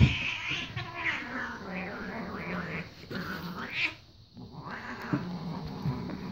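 Two cats fighting: a thump at the start, then yowling and screeching in high rising and falling cries over low growling, breaking off briefly about four seconds in before starting again.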